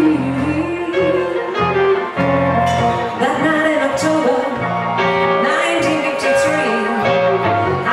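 Live blues band playing: a hollow-body electric guitar and keyboard under a sung, bending melody line.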